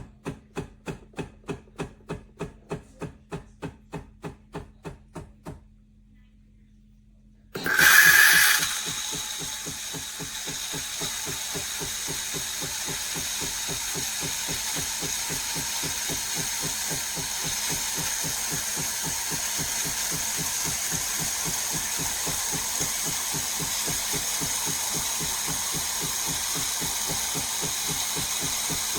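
Philips 4400 Series fully automatic espresso machine running. A regular pulsing of about four beats a second stops after about five seconds. A couple of seconds later a sudden loud hiss comes, followed by a steady, fast pulsing pump with a hiss over it.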